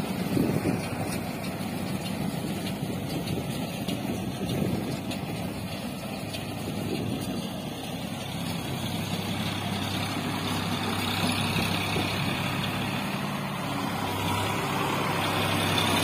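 Sonalika 740 tractor engine running steadily as it drives a working round straw baler, getting a little louder in the second half. The baler, its gearbox just repaired, is running normally under load.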